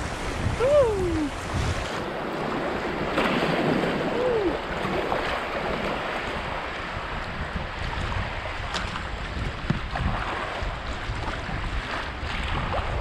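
River water rushing around a kayak running into a class 2 rapid, with wind buffeting the microphone.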